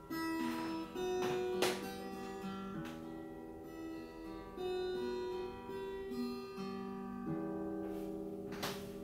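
Steel-string acoustic guitar played slowly, single plucked notes ringing into one another, with a strummed chord about a second and a half in and another near the end, as picked up by a Sony RX10 IV's built-in microphone.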